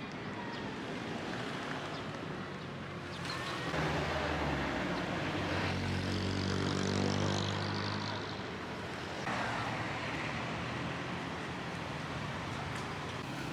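Street traffic: a motor vehicle's engine passes close by, growing louder about four seconds in and fading after about eight seconds, over a steady hum of traffic.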